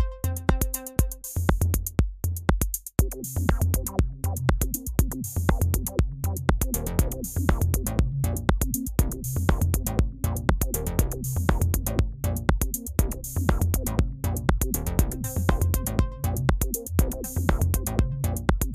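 Electronic background music with a steady drum-machine beat.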